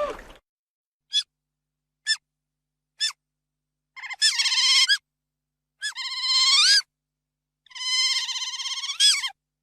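Otter calling: three short high chirps about a second apart, then three longer squealing calls with many overtones, each rising in pitch at the end.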